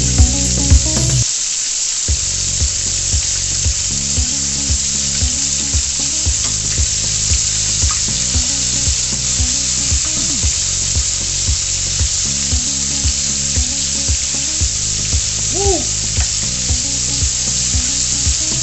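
Flour-battered fish fingers deep-frying in hot oil: a steady, dense sizzle of bubbling oil. Under it runs a low, even beat of background music, about two beats a second.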